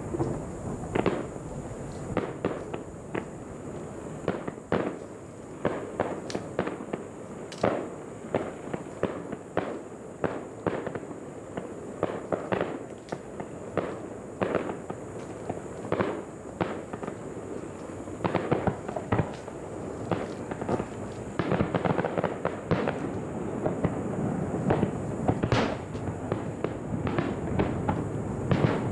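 Fireworks bursting: many sharp bangs in quick, irregular succession over a continuous rumble, coming thicker in the last third.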